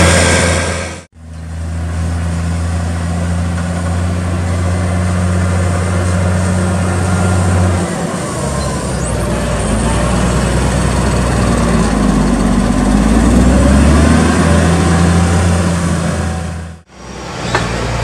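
Tractor diesel engines working under load, in clips joined by two short drop-outs about a second in and near the end. The main clip is a tractor with a front push blade driving up a silage clamp. Its engine runs steadily, changes note about halfway, then revs up and down for a couple of seconds.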